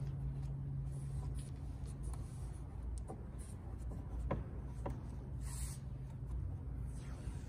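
Faint scraping and rubbing over a steady low hum, with a few light ticks around the middle.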